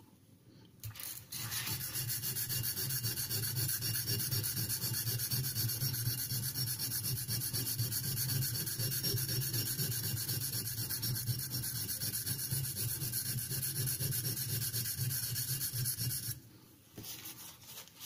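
Steel knife blade (Sandvik 12C27) stroked back and forth on a Norton India Fine oil stone lubricated with mineral oil: a steady rasping scrub as the edge is ground. It starts about a second in and stops about a second and a half before the end.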